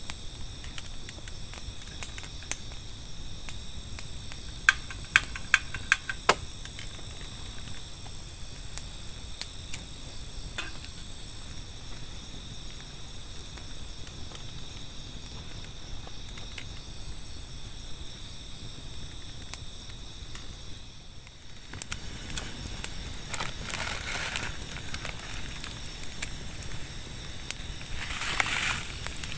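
Wood campfire crackling, with a run of sharp pops about five seconds in, over a steady high chirring of night insects. After a brief drop near two-thirds of the way through, louder rustling noises come twice.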